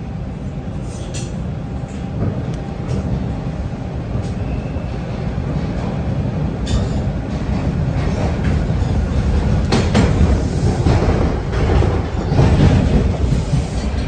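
Toronto TTC T-1 subway car pulling out of a station and gathering speed. The running noise of wheels and motors grows steadily louder, with a few sharp clicks from the rails.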